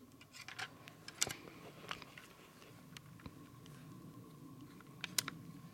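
Scattered crunches and clicks of footsteps on dry pine needles and twigs, with a sharper snap about a second in and another near the end.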